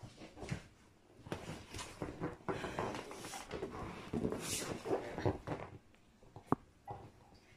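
Irregular rustling, shuffling and bumping of a person moving about and sitting down at a table, with one sharp tap about six and a half seconds in.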